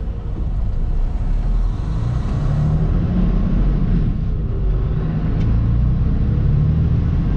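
Pickup truck engine and road noise heard from inside the cab as the truck pulls away and accelerates, growing slowly louder, the engine note climbing and dropping back a couple of times.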